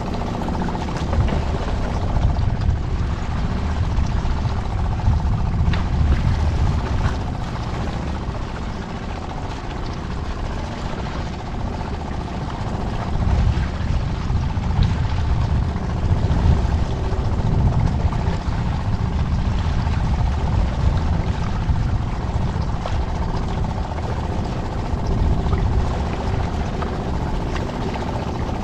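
Fishing kayak under way on open sea: a steady rumble of wind on the microphone and water washing past the hull, with a faint steady hum underneath.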